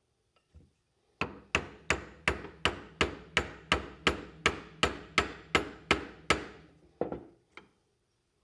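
A steady run of about fifteen hammer blows, roughly three a second, striking wood or a tool, followed by two lighter strikes near the end.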